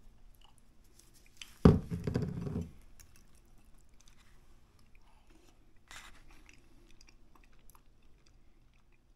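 A sudden thump about a second and a half in as a cheese shaker is set down on a wooden table, followed by about a second of handling noise. After that come faint clicks and scrapes of a metal fork mixing spaghetti in a ceramic bowl.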